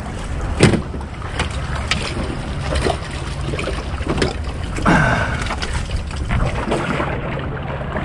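Small metal boat knocking several times as it is handled against rocks, over a steady low rumble of wind on the microphone and moving water.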